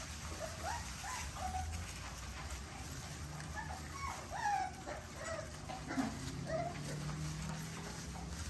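A litter of young American bully puppies whining and yipping, many short high whimpers overlapping, over a low steady hum.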